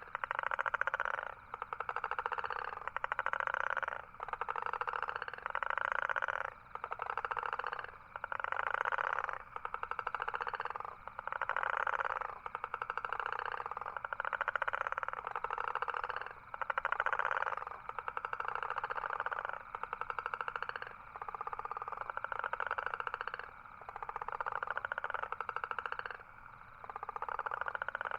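Toad calling: a run of rapid buzzing trills, each about one to two seconds long, repeating with short breaks.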